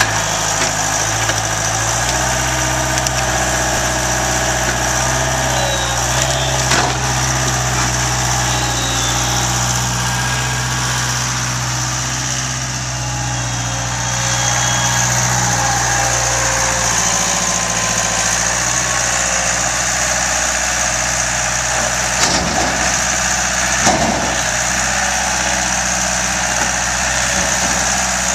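Small ride-on loader tractor's engine running steadily as the machine drives and works its grapple, its note shifting a couple of times. Two short knocks come in the last third.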